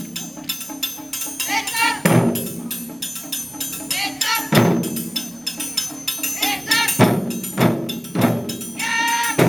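Schoolchildren's taiko drum ensemble playing: a steady stream of fast drum strokes, with heavier booming hits every couple of seconds. Voices call out over the drumming a few times, the longest near the end.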